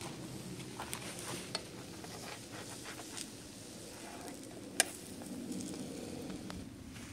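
Flatbread dough sizzling as it fries in a small pan on a camping stove. A utensil scrapes and clicks against the pan as the bread is turned over, with one sharp click about two-thirds of the way through.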